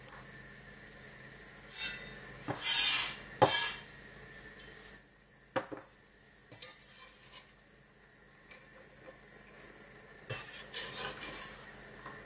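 A large kitchen knife scraping and knocking on a wooden cutting board as chopped onion is gathered up and pushed into a bowl. The scrapes come in short bursts: the loudest is about three seconds in, followed by a sharp knock, and a cluster of quicker scrapes comes near the end.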